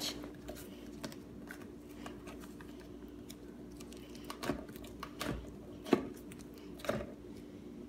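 Fluffy slime being squeezed and poked in a plastic jar, giving faint sticky clicks and crackles, with a few sharper pops in the second half, over a faint steady hum.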